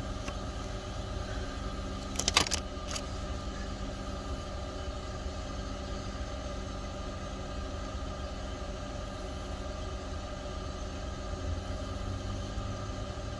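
A car engine idling steadily with a low rumble, with a few sharp clicks about two seconds in.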